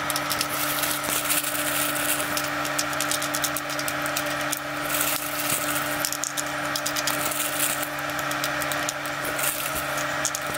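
Fresh cranberries dropped by hand into a plastic ice cube tray, making many small, irregular clicks and taps over a steady hum.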